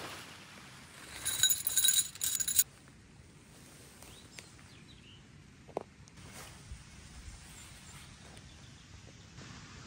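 Tent fabric rustling and flapping loudly as it is shaken out and spread over grass, for about a second and a half shortly after the start. Then soft handling rustles as the tent is pegged down, with one brief chirp near the middle.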